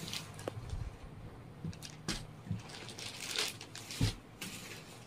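Saree cloth and blouse pieces being handled and unfolded: irregular rustles and crinkles, with a dull thump about four seconds in.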